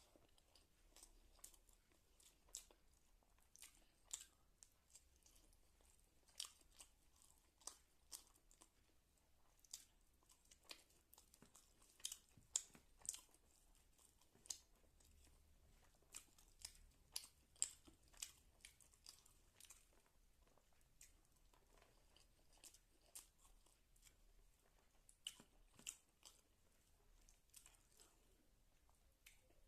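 A person chewing crunchy food close to the microphone: a steady run of irregular, sharp crunches and mouth clicks, loudest about halfway through.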